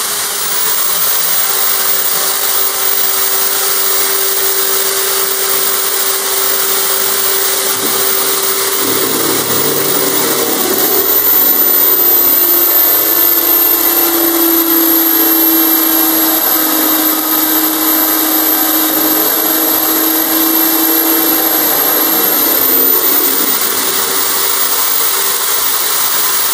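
Electric drill in a drill stand running a hollow core bit slowly into a water-cooled fossil bone, a steady whine. Its pitch sinks slightly about halfway through as the bit is fed in, then comes back up near the end.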